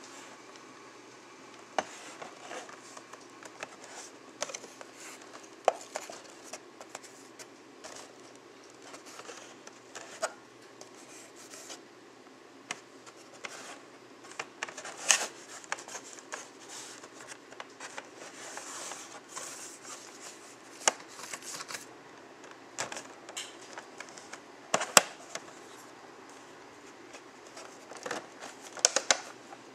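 Hands handling plastic toy packaging: scattered clicks, taps and crinkles from a plastic blister card and a clear plastic bag, with a longer crinkling stretch about two-thirds of the way through. Near the end a folded paper catalog is handled, giving a quick cluster of sharp paper rustles.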